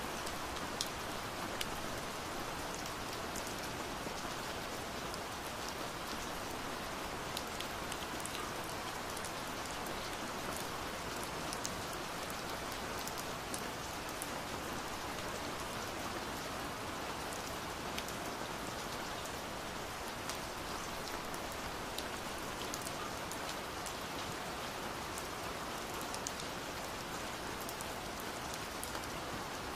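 Steady rain: an even hiss of rainfall with scattered individual drops ticking sharply on a surface.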